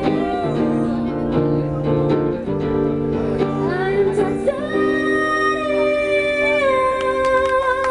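A woman singing live to her own strummed acoustic guitar. About halfway through she holds one long sung note over ringing guitar chords.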